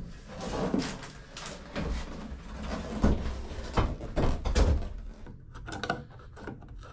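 Irregular knocks, clicks and rubbing from hands working a piece of the shower wall surround loose to take it back out.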